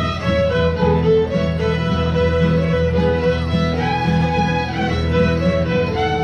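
A group of fiddles playing a dance tune together, a continuous melody of held and moving notes.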